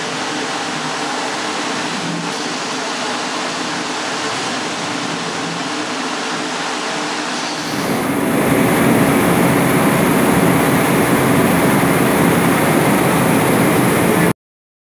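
Steady running noise of a potato-peeling line. About halfway through it gives way to a louder, deeper, steady noise from a Florigo Ultra-Peel SKC abrasive peeler running up close, which cuts off abruptly just before the end.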